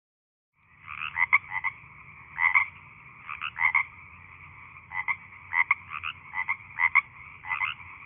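A frog croaking in a run of short calls, about one or two a second with some in quick doubles, starting just under a second in.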